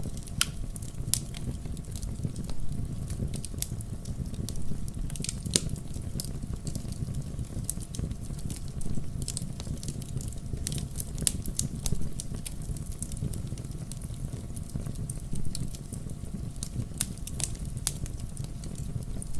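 Wood campfire burning, with a steady low rumble of the flames and irregular sharp crackles and pops from the burning wood.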